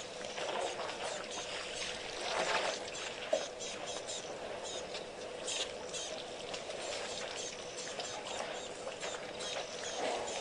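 Elephants drinking at a waterhole: a patter of small splashes and trickles as trunks draw up and pour water, over a faint steady hum.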